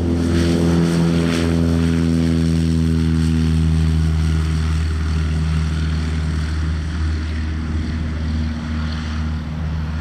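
Single-engine light propeller aeroplane taking off at full power: a steady engine-and-propeller drone that slowly drops a little in pitch and eases slightly as the plane moves away down the runway.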